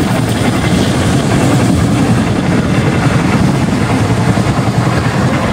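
Passenger train in motion: a steady, loud running rumble with a constant hiss of wheel and rail noise, heard from on board.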